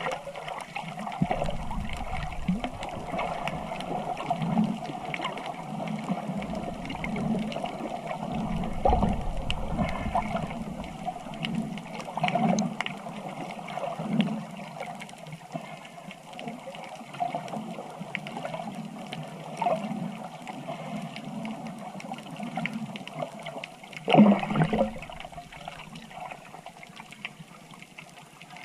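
Water sloshing and gurgling in uneven swells, with a louder surge about three-quarters of the way through.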